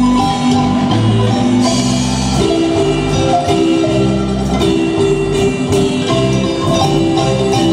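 Guatemalan marimba band playing through the PA during a sound check: rolled marimba notes over held low notes, with light percussion keeping time.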